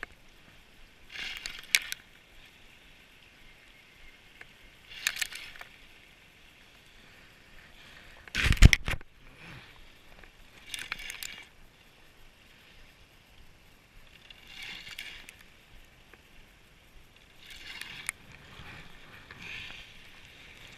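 Spinning reel being cranked in short spurts, a gear whir lasting about half a second each time, roughly every two to four seconds as a lure is retrieved. A single loud knock comes about eight seconds in.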